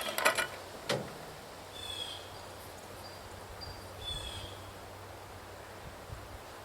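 Outdoor ambience: a few sharp knocks and clicks near the start, then a short chirping call twice, about two seconds apart, over a faint low hum.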